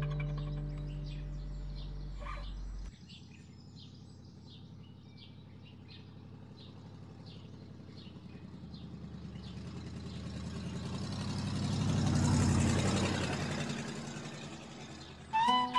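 The last low note of a music passage dies away. Then a soft rushing noise swells slowly for about ten seconds, peaks, and fades, and a nay flute melody comes in right at the end.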